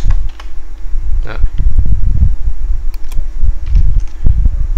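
A few computer keyboard keystrokes over irregular low rumbling bumps on the microphone, with a steady low hum.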